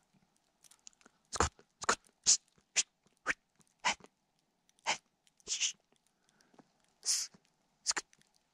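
Halvstövare hound barking, a run of about a dozen short, sharp barks spaced roughly half a second apart: the hound giving tongue as it works a fox's track.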